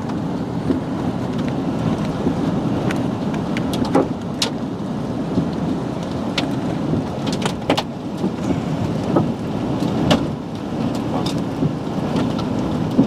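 Heavy rain and wind beating on a car during a tornado's storm, a steady dense rush with scattered sharp ticks of drops striking the body and glass.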